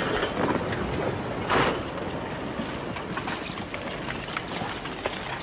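Landslide of earth and rock sweeping down onto a road and bringing down utility poles: a steady noisy rush with scattered crackles, and a loud crash about one and a half seconds in.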